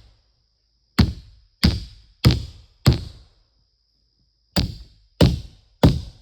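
Heavy tool blows striking wood in a steady working rhythm: four strikes about 0.6 s apart, a short pause, then three more.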